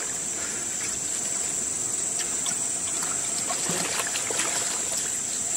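Shallow river water trickling and flowing steadily, with a steady high-pitched insect drone over it.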